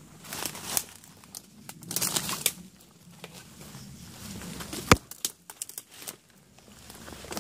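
Footsteps crunching through dry fallen leaves on a wooded slope, in uneven steps, with one sharp snap about five seconds in.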